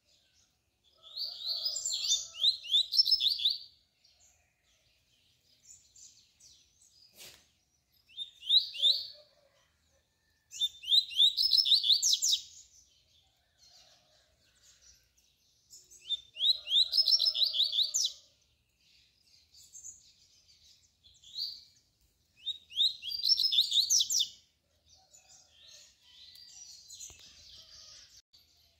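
Male double-collared seedeater (coleiro) singing the tui-tui song: five loud phrases of rapid, trilled, sweeping notes, each one to three seconds long, a few seconds apart, with softer chips between. A single sharp click about seven seconds in.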